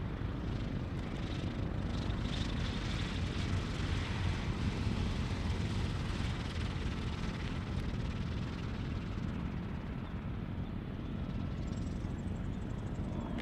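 Single-engine Mooney M20 propeller plane running steadily as it rolls along the runway, the engine and propeller giving a continuous low drone.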